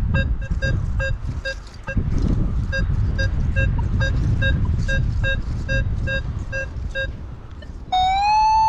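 Nokta Makro Legend metal detector giving a mid-tone target signal: short beeps of one mid pitch repeating about three times a second over a low rumble. Near the end it gives a louder continuous tone that rises briefly and then holds steady for about a second.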